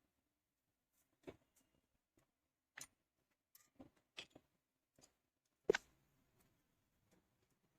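Sparse light clicks and knocks of handling, about eight spread out, the loudest a sharper knock near six seconds in.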